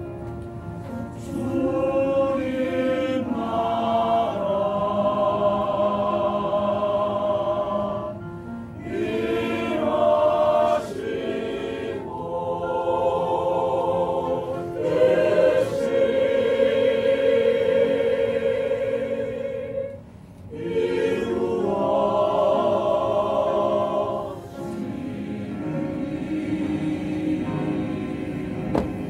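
Choir singing a Christian praise song in long held phrases, with short breaks between the phrases.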